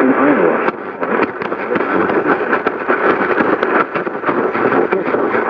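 Radio receiver static: a steady hiss full of rapid crackles and pops, the sound of a weak, noisy broadcast signal with no clear voice coming through.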